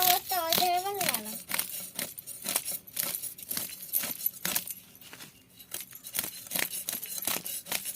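Close-up eating sounds with a meal of pakhala and fried fish: a quick run of sharp clicks, crunches and light clinks, several a second, with a short high voice near the start.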